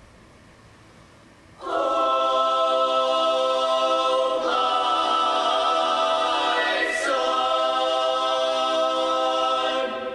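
Mixed choir of men's and women's voices singing. After about a second and a half of quiet, the voices come in together on a loud sustained chord, move to new chords twice, and cut off near the end, the sound dying away in the hall.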